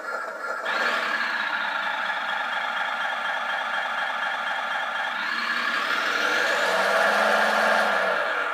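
Servonaut SMT sound module in an RC dump truck, playing a simulated diesel truck engine through its speaker. It runs steadily, revs up from about five seconds in and drops back near the end. This version has no turbo whine or whistle.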